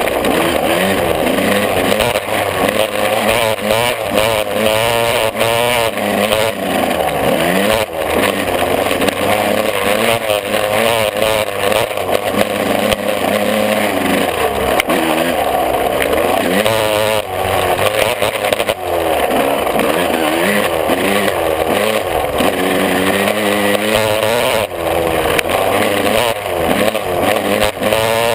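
125 cc two-stroke motocross bike engine heard from on board, revving hard and dropping back over and over as the rider accelerates, shifts and backs off. The pitch rises and falls every few seconds.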